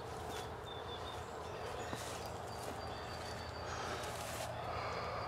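Faint woodland ambience: several short, high bird chirps and a few brief rustles in dry leaves, over a steady low hum.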